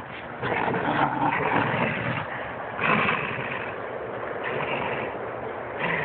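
A pit bull and a border collie growling as they tug against each other on a rope toy, a low rough rumble that swells and eases as they pull.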